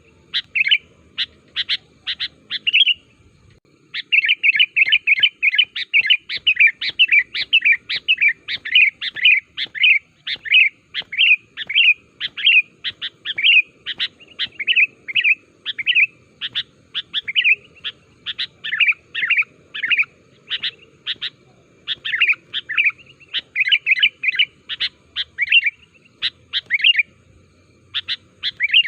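Sooty-headed bulbul (kutilang) calling vigorously in a fast run of short, sharp chirps, several notes a second, with a brief break about three seconds in.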